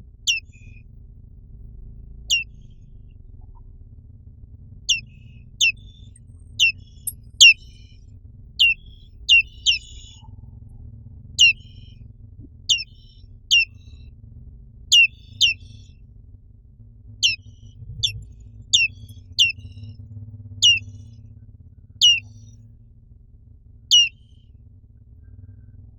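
Black-capped white-eye (Zosterops atricapilla) calling: about twenty short, sharp notes, each sliding down in pitch, at irregular intervals of roughly a second. A faint steady low hum lies underneath.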